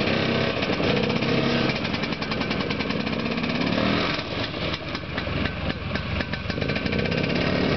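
Small vintage Snow Bug snowmobile engine running as the machine pulls away towing a sled, with a slight drop in level after about four seconds.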